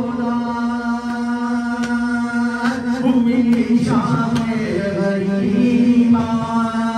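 A man's voice chanting a mourning lament in long held notes. Partway through, the melody dips and glides before returning to the sustained note.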